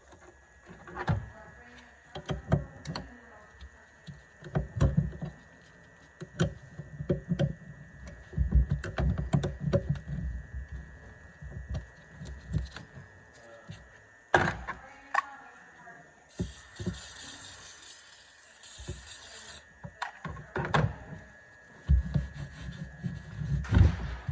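Irregular knocks, clunks and clicks of hands handling hard parts and tools, with a hissing noise of about three seconds about two thirds of the way through.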